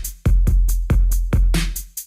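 Electronic background music with a heavy drum-machine beat: deep bass kicks about every half second with clicking hi-hats.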